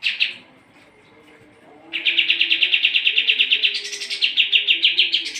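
Kapas tembak songbird singing: one short sharp note, then from about two seconds in a fast trill of repeated notes, about ten a second, that climbs higher for a moment near the middle.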